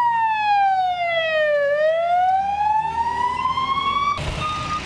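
Ambulance siren in a slow wail, its pitch falling for about two seconds and then rising again, cut off abruptly about four seconds in. Street traffic noise with a short electronic beep follows.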